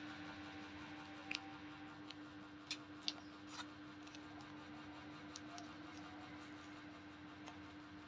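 A few light, separate clicks and taps over a steady low hum.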